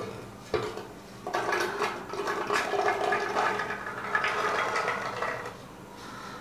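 Pomegranate arils poured from a glass bowl into a blender jug: a steady rush of many small seeds pattering onto the jug's bottom for about four seconds, after a brief knock about half a second in.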